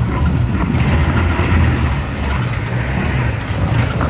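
4WD engine working hard under throttle as the vehicle drives up a steep, rocky climb, with the engine note shifting as the driver feeds in power.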